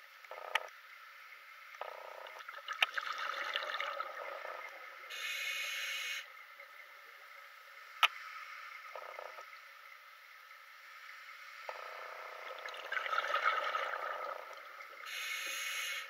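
Scuba diver breathing underwater through a regulator: a long bubbling exhalation followed by about a second of steady hissing inhalation, twice. A couple of sharp clicks fall between the breaths.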